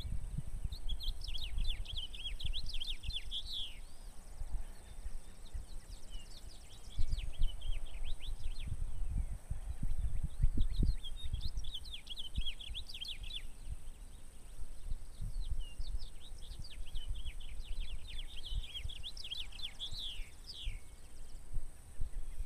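A songbird singing four phrases of rapid, jumbled notes, the last one the longest, over the low rumble and irregular thumps of wind buffeting the microphone.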